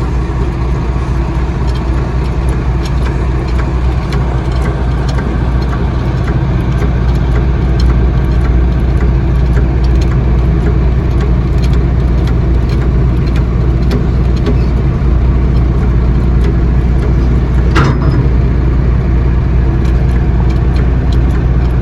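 Truck engine idling steadily, with scattered light metallic clinks from tyre tools and a short clatter near the end.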